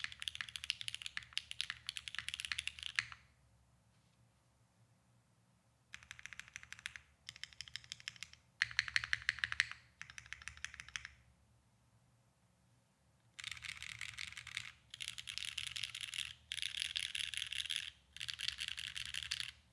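Mechanical keyboard, a gasket-mounted Neo65 with Cherry MX2A Black linear switches, a carbon fibre plate and GMK keycaps, being typed on. Steady typing stops about three seconds in. After a pause come four short runs of presses on the modifier keys, and from about thirteen seconds in, four blocks of rapid key-spamming with brief gaps between them.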